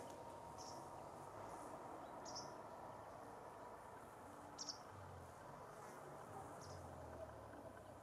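Faint outdoor ambience: a small animal's short, high chirp repeats about every two seconds over a steady low background rumble.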